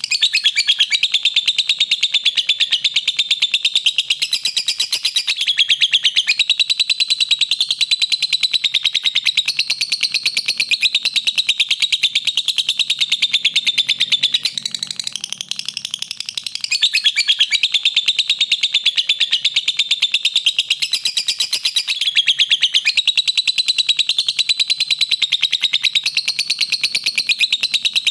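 Lovebird singing a long, rapid, continuous chattering song, with a short lull about halfway through.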